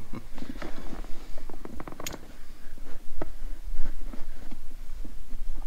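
Rubber grommets being twisted and pushed into the holes of a hard plastic snowmobile tunnel bag base: scuffing and rubbing with scattered clicks and knocks, the sharpest about two seconds in and another about a second later.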